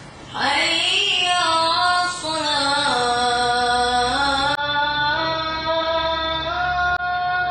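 A single voice chanting a slow melodic line in long held notes that step gently up and down in pitch, starting about half a second in.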